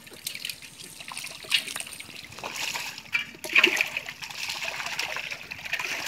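Shallow muddy water splashing and trickling as fish are worked out of a wet cast net by hand, with sharper splashes about one and a half and three and a half seconds in.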